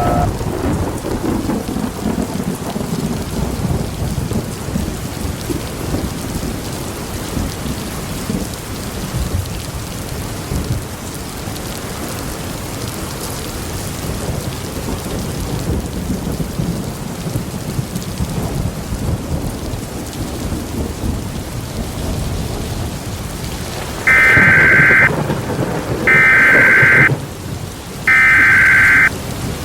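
Steady heavy rain with rumbling thunder. About 24 seconds in, three loud one-second bursts of Emergency Alert System SAME header data tones, each about two seconds apart, announce a new alert.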